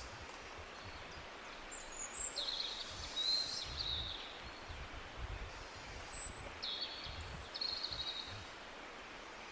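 Steady rush of a jungle waterfall with tropical birds calling over it. There are two bouts of short high chirps and buzzy trills, one about two seconds in and another about six seconds in.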